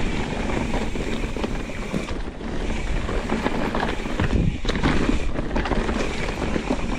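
Wind buffeting a GoPro's microphone while a mountain bike rides down a dirt trail, with tyre noise and many short rattles and knocks from the bike over rough ground.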